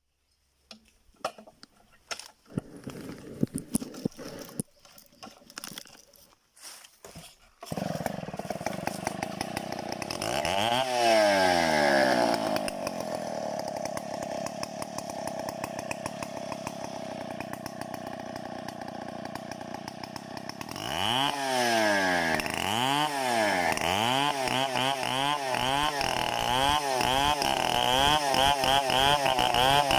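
A few scattered clicks and knocks, then a two-stroke Stihl chainsaw engine starts about eight seconds in and runs. It revs once, settles back, and from about two-thirds of the way through is revved up and down in quick repeated throttle blips.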